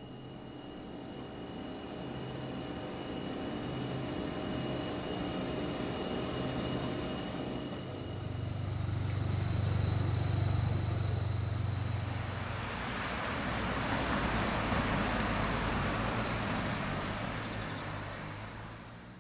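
A steady, high-pitched chorus of insects chirring throughout. A low hum rises in the middle and gives way to a broad rushing noise in the second half, and everything fades out at the very end.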